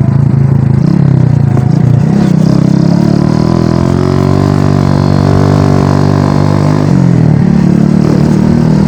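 Motorcycle engine running on the move, heard from the rider's seat; its pitch climbs a little about two seconds in, holds steady, then drops suddenly about seven seconds in.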